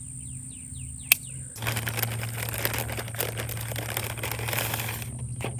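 Plastic ration packaging crinkling as it is handled, starting about a second and a half in and lasting some three and a half seconds. Before it there are faint repeated bird chirps and a single click.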